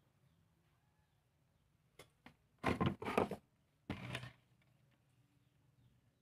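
Handling noise from a small relay and its soldered wires being turned in the fingers: two light clicks, then two brief rustling scrapes about a second apart, with quiet either side.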